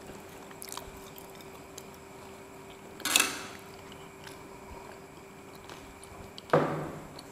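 Quiet sounds of eating at a table: faint clicks of a fork and skewers against a plate, with chewing. Two short, louder noisy sounds come about three seconds and six and a half seconds in.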